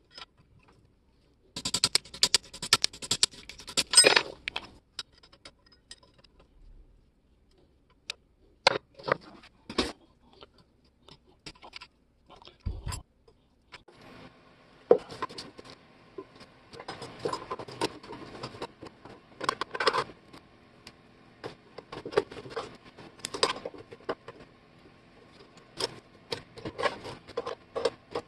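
Steel parts of vintage three-blade grass shears clinking, rattling and scraping as they are handled and worked on by hand. There is a quick run of clatter in the first few seconds, then scattered single clicks, then near-continuous clinking and handling noise through the second half.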